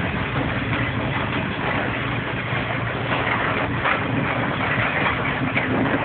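Covered freight wagons of a train rolling past on the rails: a steady rumble of wheels and running gear, with frequent knocks and rattles.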